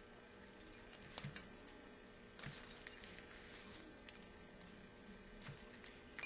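A few faint metallic clicks and light clinks of a steel piston pin and hand tools being handled against an aluminium piston during piston-to-rod assembly, the sharpest click about a second in.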